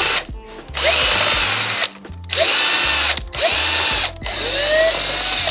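Cordless drill/driver backing out the screws of a Onewheel's front bumper and controller box cover. It runs in four short spurts, each starting with a rising whine as the motor spins up.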